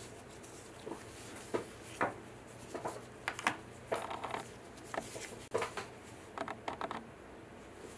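Irregular small clicks and taps of a plastic sanding stick and a 3D-printed resin diamond being handled and set down by gloved hands, with no sanding strokes. About a dozen sharp taps, spread from about one second in to about seven seconds in.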